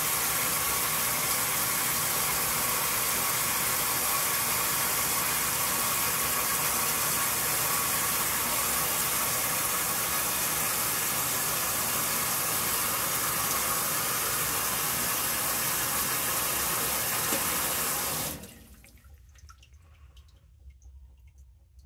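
Warm-rinse water pouring steadily into the tub of a belt-drive Whirlpool Supreme top-load washer. It cuts off abruptly about eighteen seconds in as the fill stops.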